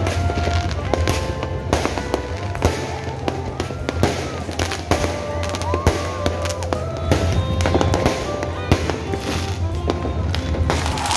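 Fireworks and firecrackers going off repeatedly, many sharp bangs and crackles one after another, over a crowd. Short held tones and a few rising-and-falling glides sound between the bangs, above a steady low hum.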